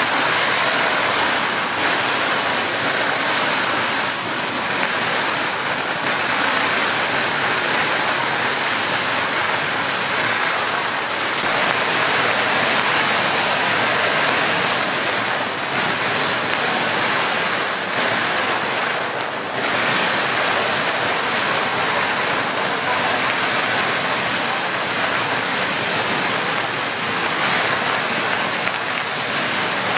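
Long strings of firecrackers going off in a continuous, dense crackling barrage, dipping briefly about twenty seconds in.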